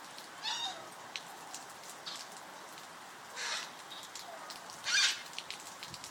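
Heavy rain falling steadily, with three short, harsh African grey parrot calls: about half a second in, again after three seconds, and the loudest about five seconds in.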